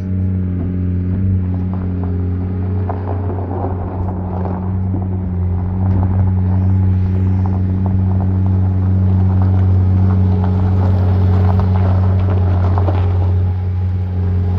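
Diesel engine of a skid steer loader running steadily under work, with metallic rattles and clanks. It gets louder about six seconds in.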